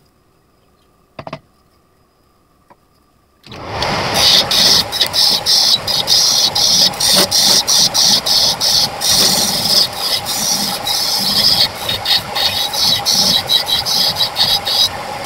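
Quiet apart from a brief click, then about three and a half seconds in a wood lathe starts. It runs loudly, with the high hiss of a tool cutting into the spinning wood rising and falling in quick uneven strokes.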